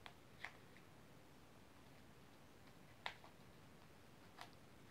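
Near silence with a few faint, sharp clicks and taps from hands handling a small boxed product. Three come in the first second, and the loudest comes about three seconds in.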